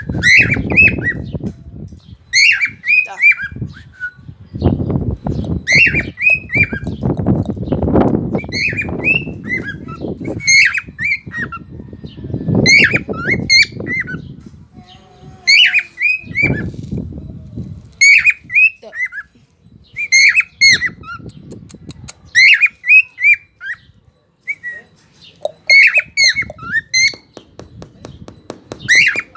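Cockatiel calling over and over: short chirping squawks in quick groups of two to four, repeating every second or two. A low rumbling noise comes and goes beneath the calls.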